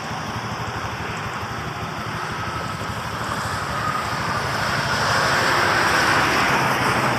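Highway traffic: cars passing at speed on a multi-lane expressway, a steady rush of tyres and engines that grows louder about five seconds in as a minivan goes by close to the verge.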